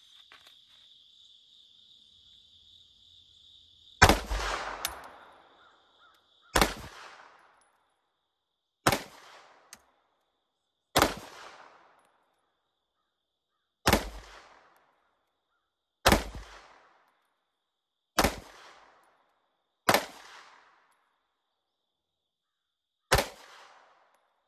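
Nine single shots from a Wilson Combat EDC X-9 9mm pistol, fired slowly about two to three seconds apart, each trailing off in a brief echo.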